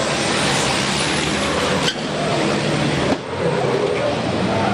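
Several racing trucks' turbo-diesel engines running hard as the pack passes through a corner, a dense, loud engine noise. It breaks off abruptly twice, about two and three seconds in.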